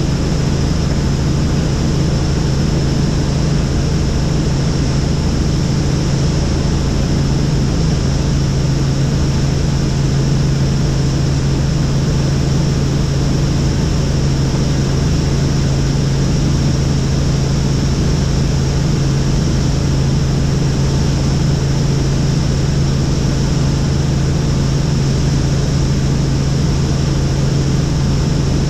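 Helicopter in flight: a loud, unchanging drone of engine and rotor, with a strong low hum and a fainter high whine over a wash of noise.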